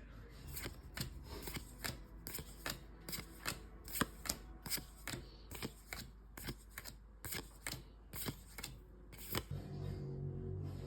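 Trading cards being flipped and slid through by hand: a quick, uneven run of card flicks and snaps, two or three a second.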